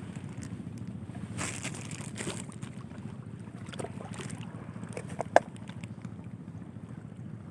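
Steady low rumble, with a few light clicks and one sharp click about five seconds in.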